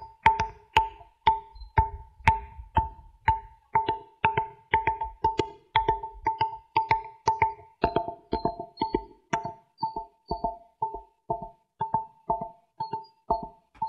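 Stone musical pillars tapped by hand in a quick, even run of about two strikes a second, each strike a short ringing note; the same two or three pitches recur, like a set of tuned stone chimes.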